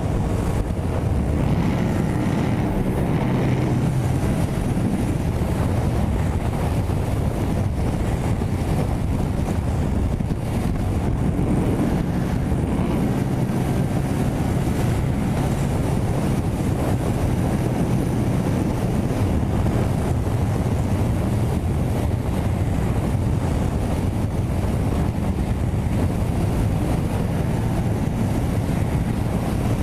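Wind rushing over the microphone at high motorway speed on a Yamaha MT-07, steady throughout, with the bike's parallel-twin engine running evenly in top gear underneath.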